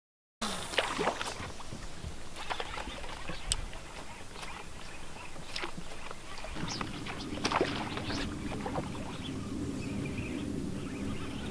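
Scattered small splashes and plops at the water surface as fish break it. A low steady hum comes in about halfway through and carries on under the splashes.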